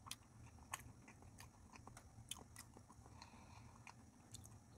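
A person chewing a mouthful of sushi with the mouth closed: faint, irregular soft clicks and smacks, a few each second.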